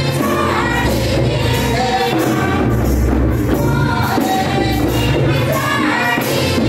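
A group of singers performing a Sadri Christian welcome song with instrumental accompaniment.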